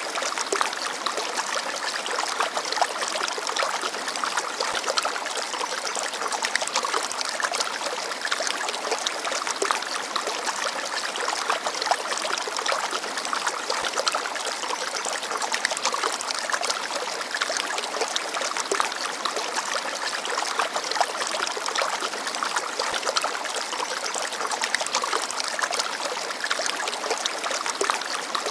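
Small forest stream babbling steadily over stones, a continuous splashing trickle with many small splashes.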